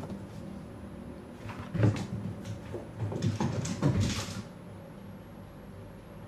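Knocks and scuffling on a hardwood floor as a cat scrambles after a thrown toy: a thump or two about two seconds in, then a busier patch of knocks and scrabbling around three to four seconds in.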